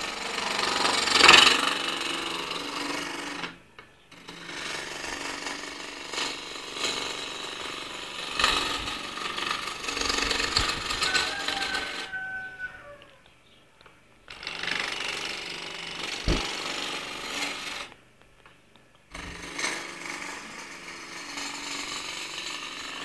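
Woodturning on a homemade wood lathe: a chisel cutting the spinning wood with a rough, rattling scrape, stopping briefly three times.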